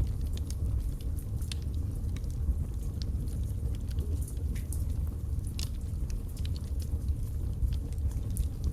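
Wood fire burning in a fireplace: a steady low rumble of flame with scattered sharp crackles and pops from the logs.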